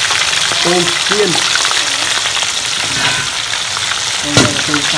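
Whole shrimp deep-frying in a wide wok of hot oil: a steady sizzling hiss, with a sharp knock about four seconds in.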